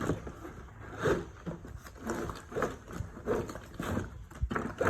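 Packaging being handled and moved: a string of short rustles and knocks of cardboard and plastic, about one or two a second.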